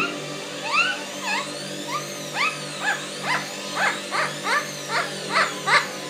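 Blue-fronted Amazon parrot giving a quick run of short, rising chirps, about three a second and coming faster toward the end, over music playing in the background.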